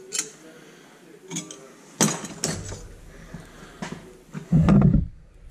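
Clinks and knocks of a hardened steel knife blade and metal tools being handled at a clamp, a few sharp taps spread through, with a heavier low thump near the end.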